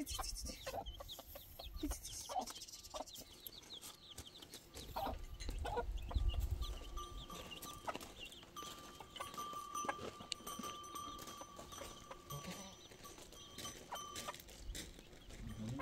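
Farmyard animals: chickens clucking, with rapid high chirps in the first few seconds and scattered calls from other livestock.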